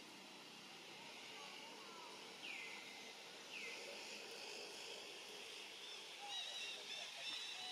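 Faint outdoor ambience with birds calling: two falling whistled calls a few seconds in, then a run of short, quick chirps from about six seconds in.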